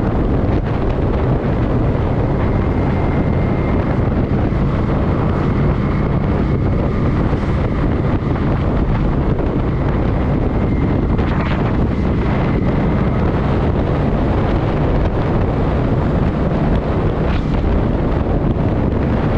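Kawasaki Vulcan 900 Custom's V-twin engine running steadily while the motorcycle cruises, mixed with wind rushing over the microphone.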